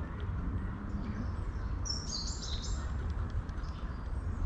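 A small bird sings a short run of high chirps about two seconds in, falling in pitch over about a second. Under it runs a steady low rushing noise.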